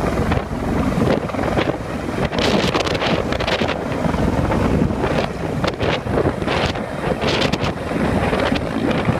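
A rescue helicopter hovering close overhead, its rotor downwash buffeting the microphone with heavy wind over the low, fluttering beat of the rotor.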